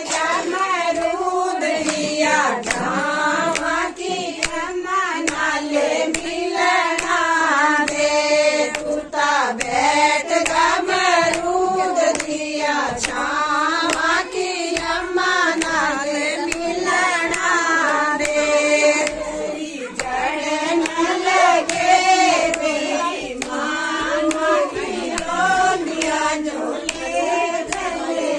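A group of voices singing a Himachali wedding folk song (vivah geet) in unison, with steady rhythmic hand clapping at about two claps a second.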